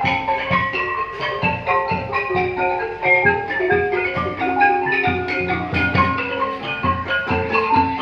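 Khmer traditional music on struck, xylophone-like mallet instruments: a continuous, rapid stream of ringing notes with low strokes underneath.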